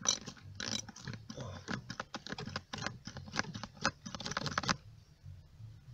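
Hand-operated gear-oil bottle pump worked in quick strokes, a run of sharp clicks, forcing gear oil up a hose into the lower unit of a Mariner 30 HP outboard. The strokes stop about five seconds in.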